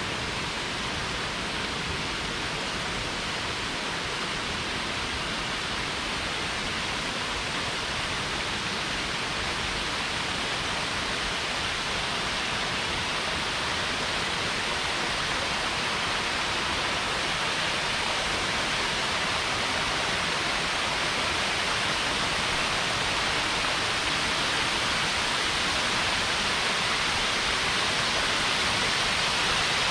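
Small waterfalls splashing over rock ledges into a lake: a steady rush of falling water that grows gradually louder.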